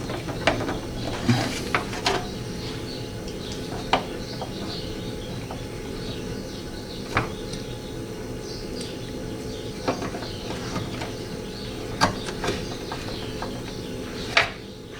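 Occasional light clicks and knocks of metal and plastic window-regulator parts being handled and fitted in a car door, over a steady background hum, with birds chirping faintly.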